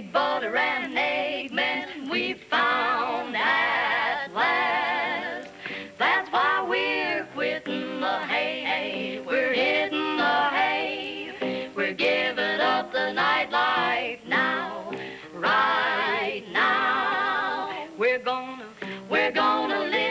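Female vocal trio singing a close-harmony jazz number, in quick, sliding, wavering notes with no clear words.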